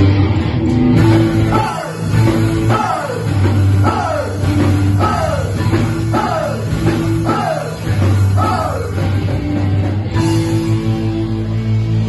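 Live rock band playing loudly: electric guitars, bass guitar and drum kit, with a high part that slides down in pitch over and over through most of the passage, stopping about nine seconds in.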